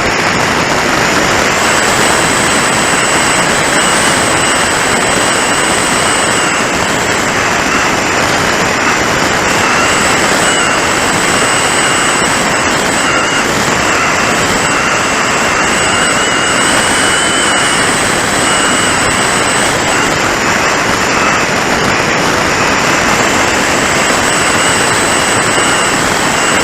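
Steady rush of airflow and wind over the on-board camera of a Top RC Lightning warmliner glider in flight, with a thin high whistle that wavers slightly in pitch.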